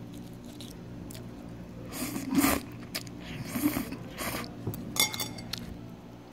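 Someone eating ramen with metal chopsticks: a few short slurping and chewing noises, then a sharp clink of the chopsticks against the ceramic bowl about five seconds in, over a steady low hum.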